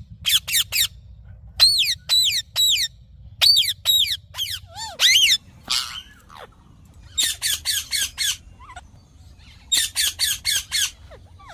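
Indian ringneck parakeet giving shrill squawking calls in quick runs of three to five, with short pauses between runs.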